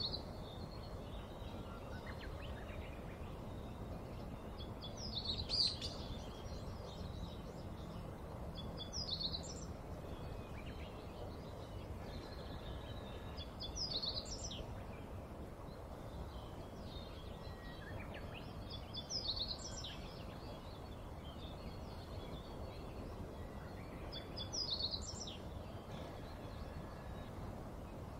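A bird calling repeatedly: short, high chirping phrases about every five seconds over a steady low background noise.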